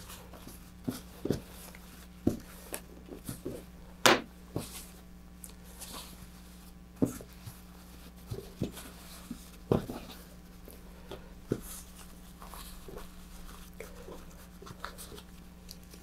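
Parachute fabric rustling as it is folded and rolled up by hand on a cutting mat, with scattered light taps and knocks, the sharpest about 4 s and 10 s in. A steady low hum runs underneath.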